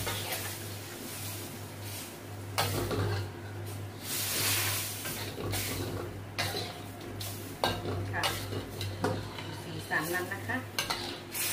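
Metal ladle stirring chicken curry in a stainless-steel wok, scraping and clinking against the pan over a simmering sizzle. A louder hiss comes about four seconds in, and a steady low hum runs underneath.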